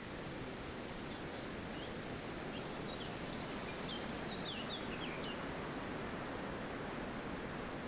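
Steady wind through forest trees, with a bird giving a run of short, high, falling chirps from about a second in until about five seconds in.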